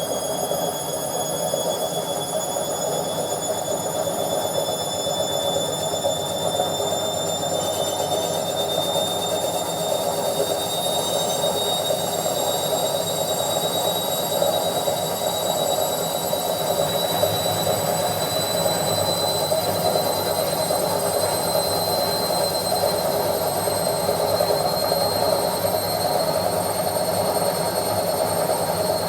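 Washing machine on its spin cycle: a steady whooshing rumble from the spinning drum with a high motor whine that slowly rises in pitch as the drum gathers speed.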